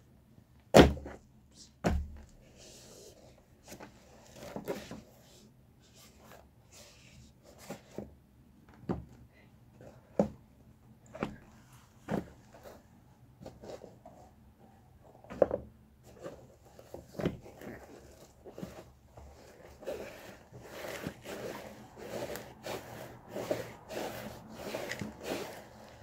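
Shoes stamping and grinding down on a pair of Adidas Sleek sneakers on a concrete floor: irregular thumps and scuffs about once a second, the loudest two about a second and two seconds in, growing denser and busier toward the end.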